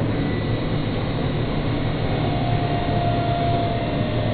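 Electric train running along the track, a steady rumble of wheels and running gear with a faint steady whine coming in about halfway through.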